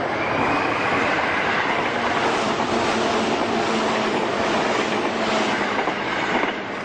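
A commuter train moving along a platform: a loud, steady running noise with a faint high whine that rises in the first second, and a drop in loudness near the end.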